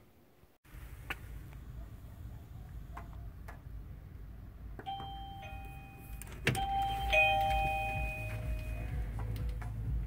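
Govee wireless doorbell playing a short electronic chime: a few held, bell-like notes that change pitch in steps, starting about five seconds in and lasting about four seconds. A sharp click comes partway through the chime, over a steady low rumble.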